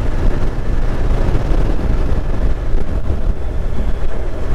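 Honda NC750X motorcycle riding along at a steady pace: a steady low rush of wind buffeting the microphone, mixed with the drone of the parallel-twin engine and the tyres on the road.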